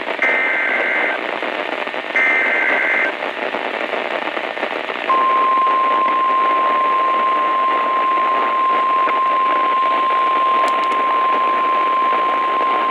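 NOAA Weather Radio emergency alert heard through radio hiss: two short bursts of SAME digital header tones, about a second each, then about five seconds in the steady 1050 Hz warning alarm tone begins and holds. It is the alert announcing a severe thunderstorm warning.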